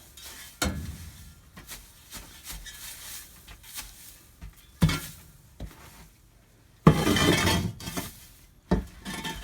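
Hay being shoved and dropped off the edge of a wooden barn loft: scattered knocks and thuds with rustling, the loudest a burst of rustling and clatter lasting about a second, roughly seven seconds in.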